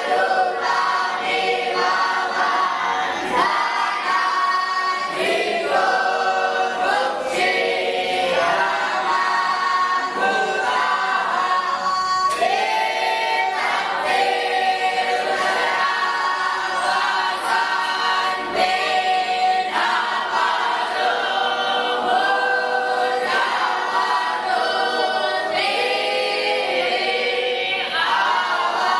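A group of voices singing together in chorus, long held notes moving from pitch to pitch every second or two.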